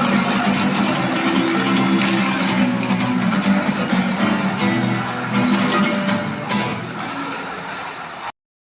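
Acoustic guitar strummed in a live street performance of a rock song, with a steady rhythm. The music cuts off suddenly near the end.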